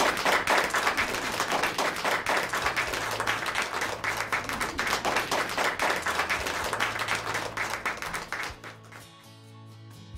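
A small group of people clapping, fading out about eight and a half seconds in, over soft background music.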